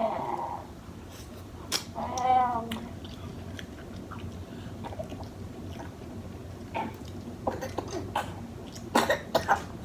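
Close-up eating sounds from a snow crab meal: chewing with sharp clicks and cracks scattered through, and a quick cluster of loud clicks near the end. About two seconds in comes a short high-pitched cry with a wavering pitch.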